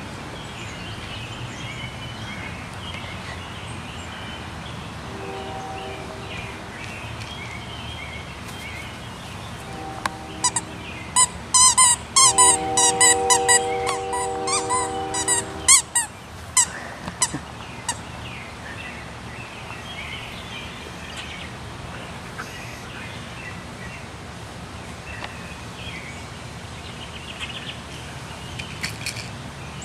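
Birds chirping throughout. Midway, a rapid run of loud, sharp clicks goes on for about six seconds over a steady droning tone.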